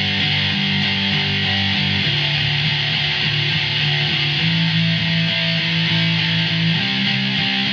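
Guitar in drop D tuning playing a run of chords barred across the bottom three strings, each chord struck repeatedly. The chord changes about every two to two and a half seconds.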